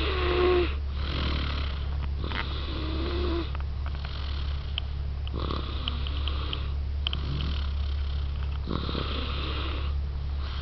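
Baby snoring in its sleep: a soft snore on each breath, about every one and a half to two seconds, some with a brief low humming tone.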